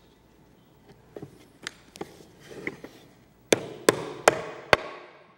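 Wooden mallet driving a wooden pewa (butterfly inlay patch) into its recess across a crack in a wooden bowl: a few lighter knocks, then four sharp blows about 0.4 s apart in the second half.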